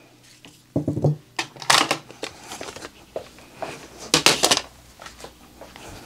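A plastic rotary paper trimmer handled and moved aside on a wooden tabletop: a few sharp knocks and scrapes, the loudest just after four seconds in.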